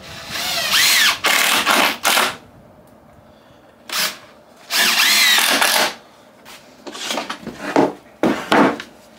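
Cordless drill-driver driving screws into timber in two runs, the first about two seconds long and the second about one, its motor pitch changing as each screw goes in. Near the end come several knocks of wood being handled.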